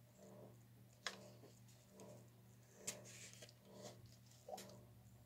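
Near silence over a steady low hum, broken by three faint clicks and taps of plastic paint cups and bottles being handled: about a second in, near three seconds and again near four and a half seconds.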